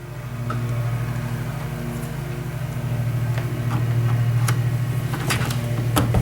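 A steady low electric-motor hum, with a few light clicks and knocks over it, the sharpest near the end.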